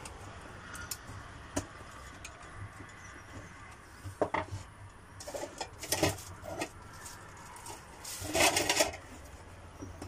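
Scattered clicks and plastic creaks from a screwdriver prying at a vacuum cleaner's plastic housing. Tools rattle as one screwdriver is swapped for another, with the loudest clatter about a second before the end.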